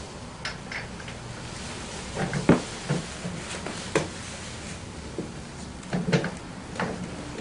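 Scooter rear shock absorber being worked by hand into its mount: a handful of scattered, irregular knocks and clicks of the parts bumping together as it is lined up with the sleeve.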